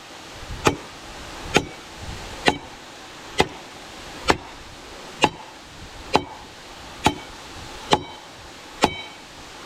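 Evenly spaced chopping strikes of a blade on a board, about one a second, ten in all, over the steady rush of a waterfall.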